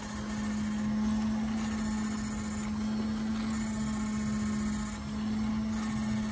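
Battery-powered electrofishing shocker running: a steady electrical hum on one pitch, with a faint hiss over it.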